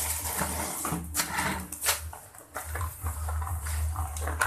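A hand stirring and rubbing a dry, crumbly groundbait mix of roasted corn bran and powdered fish feed in a plastic basin, making irregular scratchy rustling and scraping over a low, steady hum.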